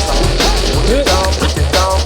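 Drum and bass music with a heavy sustained bassline, fast drum strokes and bending synth lines.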